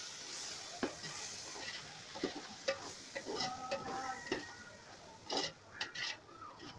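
Slotted metal ladle scraping and clinking irregularly against a metal pot while stirring chicken masala, with the masala sizzling as it fries.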